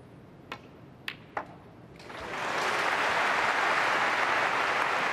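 Three sharp clicks of snooker balls, the cue striking the cue ball and balls knocking together, within about a second. About two seconds in, applause from a large arena crowd swells up and keeps going.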